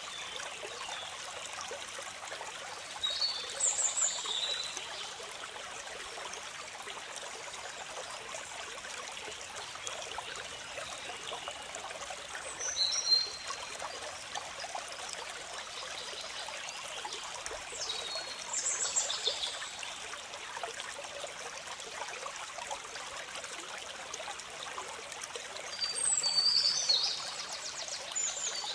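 Steady trickling of running water, like a small stream, with short bursts of high bird chirps four times.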